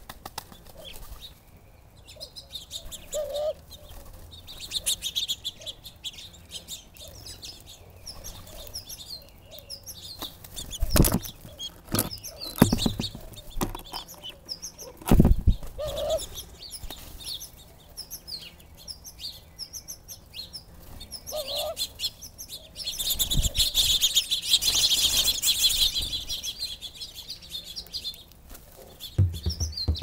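Doves flapping their wings as they land on and take off from a hanging seed feeder, with several loud thumps from wingbeats and landings. Small birds chirp throughout, densest in a busy stretch near the end.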